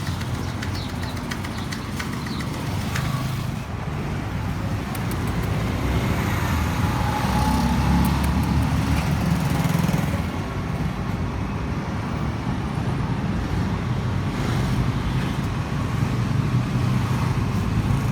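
Street traffic noise: a steady rumble of passing vehicles, swelling louder for a few seconds near the middle.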